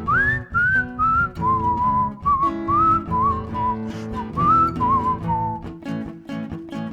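A whistled melody with sliding notes over acoustic guitar strumming; the whistling stops about two-thirds of the way through, leaving the guitar playing on.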